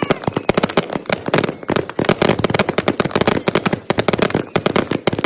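Consumer fireworks and firecrackers going off in a dense, rapid string of sharp bangs and crackles, many per second. The audio is sped up threefold, so the bangs are packed closer together and sound higher than they would in real time.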